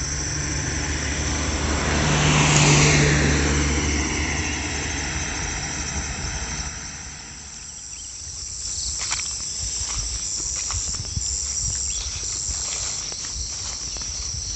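A motor vehicle passes by, growing louder to a peak about three seconds in and then fading away, over a steady high chirring of insects. From about eight seconds in, footsteps crunch on dry fallen leaves.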